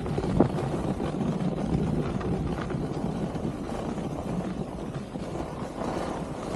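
Wind rushing over the microphone of a skier moving downhill, a steady low rush mixed with the hiss of skis sliding on groomed snow. A few short scrapes stand out, about half a second in, near the middle and near the end.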